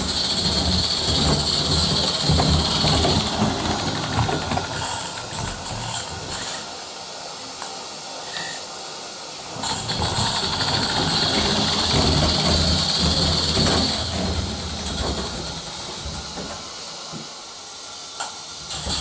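Roundhouse live steam model locomotive running on tinplate O gauge track: steam hissing over the low rumble of its wheels on the rails. The hiss is loud for the first few seconds, drops away, then comes back loud from about ten seconds in for a few seconds before fading again.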